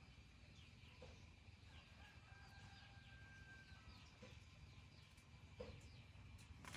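Faint chickens clucking now and then, with many quick high, falling peeps.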